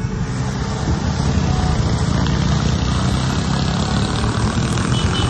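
A car driving on a wet road, heard from inside the cabin: a steady rush of tyre, wind and engine noise.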